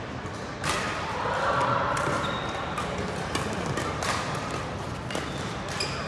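Badminton rally: rackets striking the shuttlecock about five times, roughly a second apart, with a hum of voices in the sports hall behind.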